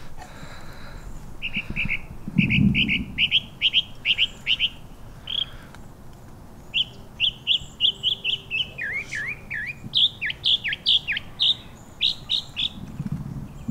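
Small songbird chirping: quick runs of short, high notes, broken by pauses, with some notes sliding downward in the second half. A brief low rumble comes about two and a half seconds in.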